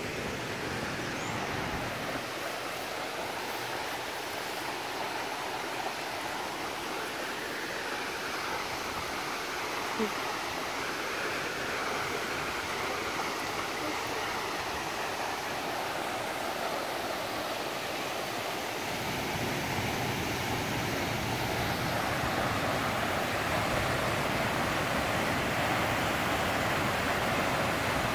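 Waterfall and the creek below it rushing: a steady hiss of falling and running water that grows fuller and slightly louder in the second half.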